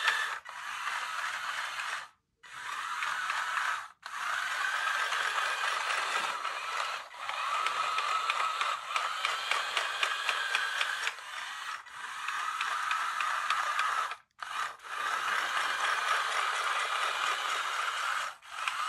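Small yellow DC gearmotors of a 3D-printed tracked RC tank whining as it drives, with the plastic tracks and gears rattling. The pitch shifts a little, and it cuts out briefly several times as the motors stop and start.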